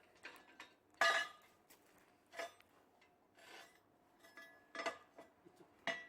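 Metal parts of a homemade rocket stove clanking and scraping as they are handled, with about four separate ringing knocks, the loudest about a second in.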